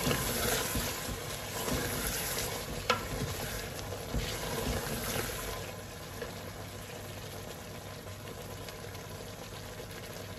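Mutton frying and sizzling in butter in a cooking pot, with stirring strokes and a sharp click about three seconds in. After about six seconds the sizzle settles to a steadier, quieter hiss.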